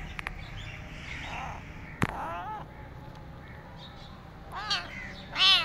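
Tabby kitten meowing: one meow about two seconds in, then two more near the end, the last the loudest. A sharp click comes just before the first meow.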